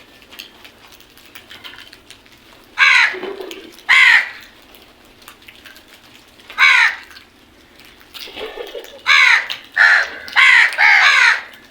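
A group of crows cawing: seven loud caws, spaced out at first, then four in quick succession near the end, with a couple of softer, lower calls between them.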